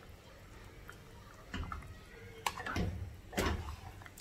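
A spatula stirring minced-meat and tomato sauce in a cooking pot: a few scraping strokes and knocks against the pot, starting about a second and a half in.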